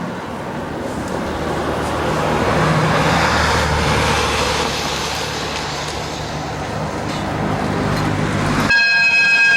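KiHa 283 series diesel express train approaching, its engines and running noise swelling as it nears. Near the end its horn starts abruptly, one loud steady blast.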